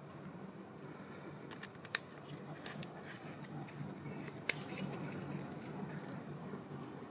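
Plastic water bottle being handled and its screw cap twisted, giving a few sharp plastic clicks, the two loudest about two seconds and four and a half seconds in, over a steady low background hum.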